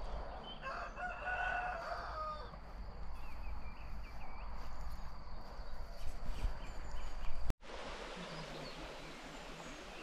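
A rooster crowing once, a long call of about two seconds starting about half a second in, over a low wind rumble. Small birds chirp after it, and after a sudden cut near the end there is wind rumble and faint birdsong.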